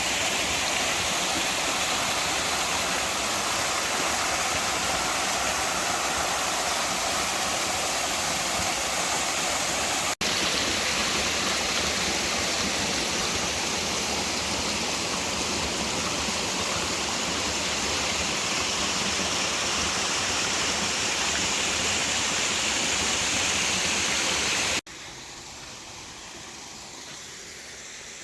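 Rushing water: a steady, even rush, like a waterfall or fast stream. It breaks off for an instant about ten seconds in and becomes much quieter near the end.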